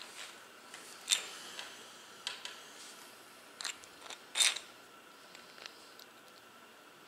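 Metal parts of a Shimano coaster brake hub clinking and clicking as the greasy axle assembly with its sprocket and driver is handled: a few separate sharp clicks, the loudest about a second in and a longer rattling clack a little past four seconds.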